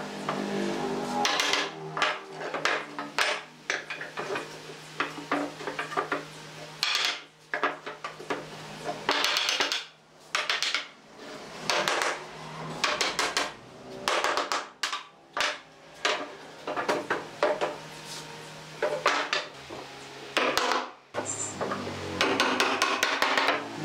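Softwood frame pieces knocked and clattered together on a wooden workbench as their joints are fitted: many sharp, irregular knocks of wood on wood.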